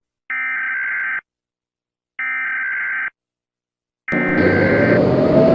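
Emergency Alert System SAME header data bursts: harsh, buzzy digital screeches about a second long, with a second of dead silence between them. A third burst starts about four seconds in and is covered almost at once by a loud, rough noise with a slowly rising pitch.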